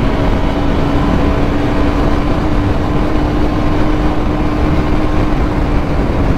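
Motorcycle engine running at a steady speed under heavy wind rush on the camera microphone, its note holding level throughout.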